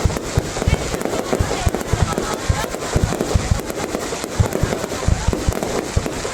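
Fireworks display: a dense, continuous barrage of booming bursts and sharp cracks, many each second.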